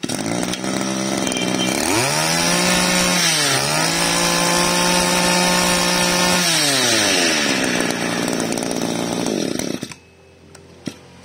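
Stihl FS23 two-stroke grass trimmer engine (32 mm bore, 23 cc) running: it idles, is revved up about two seconds in with a brief dip, held at high revs, then drops back to idle and stops about ten seconds in.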